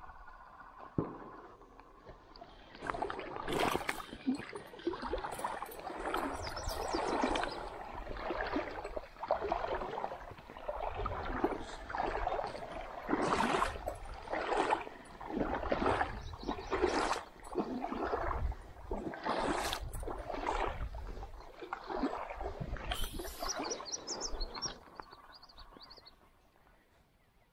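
Water sloshing and splashing in an uneven rhythm, roughly one surge a second. It starts about three seconds in and dies away near the end.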